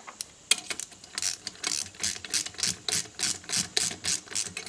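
Socket ratchet wrench clicking in short back-and-forth strokes, about three to four a second, running down a bolt on a small engine's push rod guide plate.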